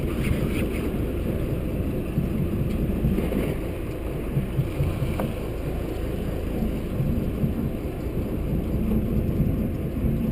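Steady low rumble of a small fishing boat's motor at sea, with wind buffeting the microphone.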